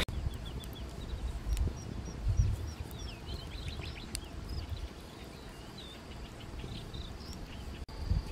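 Small birds chirping in quick, repeated short calls through the first half, then a steady high insect trill that starts near the end. A few low thuds and a couple of single sharp clicks sound over them.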